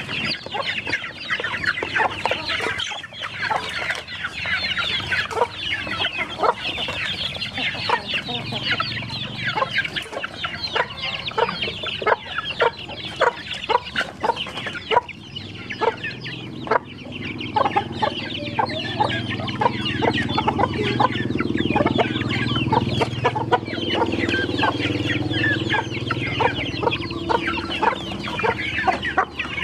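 A flock of chickens feeding together: a constant chorus of high, short chick peeps over hens clucking, with many short sharp clucks. From about halfway a low steady hum joins in underneath.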